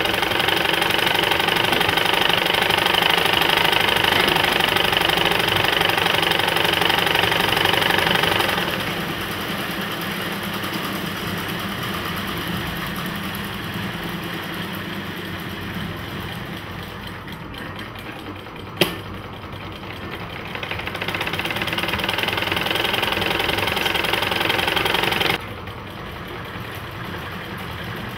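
Manual sewing machines running and stitching with a steady mechanical clatter, loud at first and softer in the middle. A single sharp click comes about two-thirds through, the running picks up again, and it drops off abruptly a few seconds before the end.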